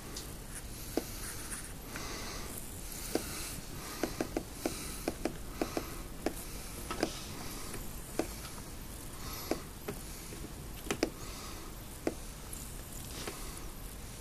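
Handling noise: irregular light clicks and taps with brief scratchy rubbing, from fingers and a phone against a clear ant-nest container.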